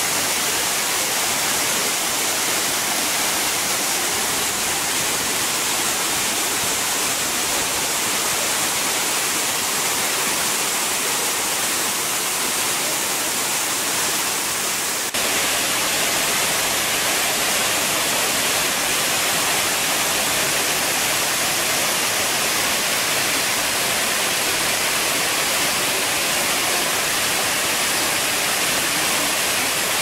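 Waterfall: white water pouring over rock ledges, a steady rushing hiss. About halfway through it shifts abruptly to a slightly louder, brighter rush.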